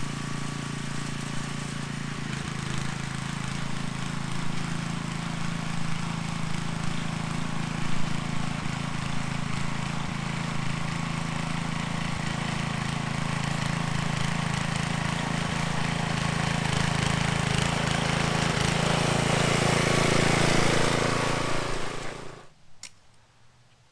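A small engine running steadily, with a slight rise in level toward the end, then stopping abruptly about 22 seconds in.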